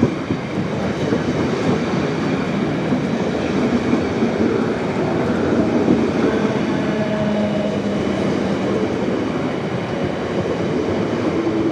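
Class 455 electric multiple unit running into the platform at close range: a steady rumble of wheels on rail. A steady hum from the train's motors comes in during the second half.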